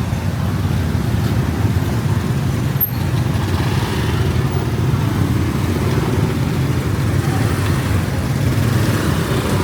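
Steady low rumble of road traffic, with vehicle engines running on the street.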